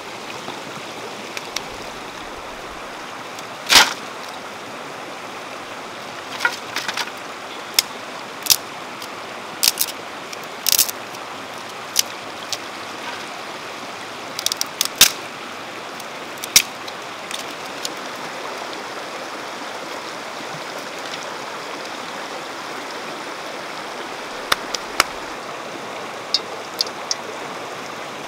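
River water running steadily, with a scattering of sharp snaps and knocks over it from dry sticks being broken for firewood and stones being handled on rock.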